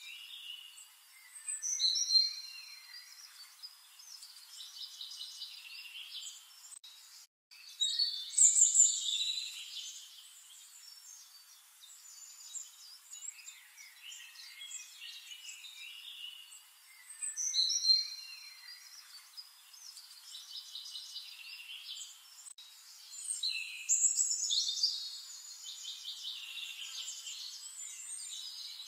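Songbirds singing in woodland: a louder song phrase comes about four times, several seconds apart, over steady fainter chirping.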